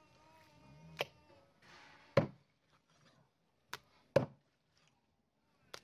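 Knife chopping on a cutting board: five sharp chops at uneven spacing, the loudest about two seconds in and again about four seconds in. A cat's drawn-out meow carries over the first second.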